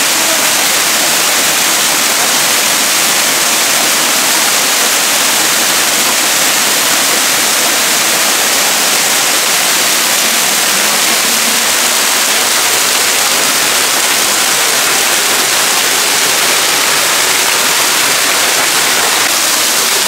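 Waterfall pouring off a rock ledge, a loud, steady rush of falling water.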